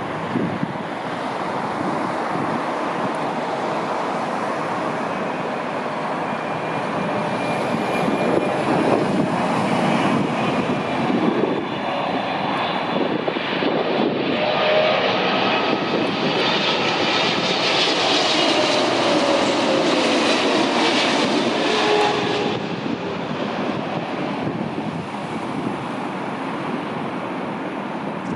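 Heavy jet airliner passing overhead on approach to land, its engine noise building, holding loud through the middle and then easing, with a whine that slides down in pitch as it goes by.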